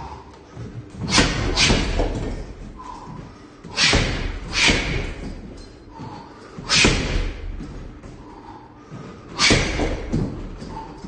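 Gloved punches landing on a hanging heavy punching bag: sharp thuds, mostly in quick pairs, every two to three seconds, about six or seven in all.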